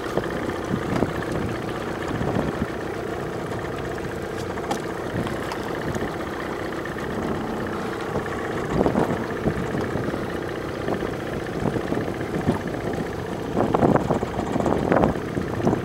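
Small boat's motor idling steadily while the boat runs slowly along a crabbing trotline, with a few brief louder noises about nine seconds in and near the end.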